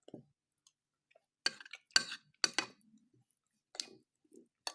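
A spoon clinking against a bowl, about six short, sharp clinks spaced irregularly with quiet between them.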